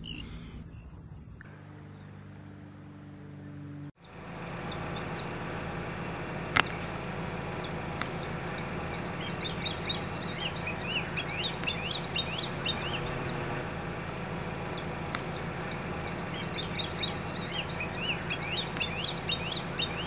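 Swallow-tailed kites calling in rapid series of high, thin whistled notes, many per second, starting about four seconds in with a short lull near the middle: the constant begging of young kites. Underneath is a steady low hum, and there is a single sharp click at about six and a half seconds.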